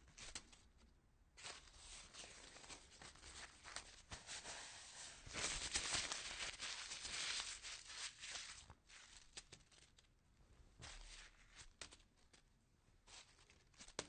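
Paper being crunched and crumpled: a run of crackling crinkles, loudest in the middle, then thinning out into scattered crackles.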